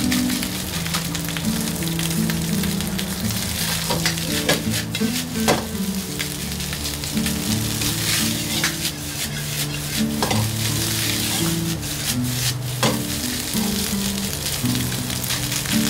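Egg fried rice sizzling in a hot iron wok as it is stirred and turned with a metal ladle. Sharp clacks of the ladle striking the wok come every second or two over the steady sizzle.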